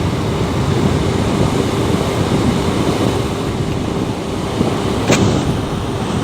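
Loud, steady rushing wind noise of a snowstorm, with one sharp click about five seconds in.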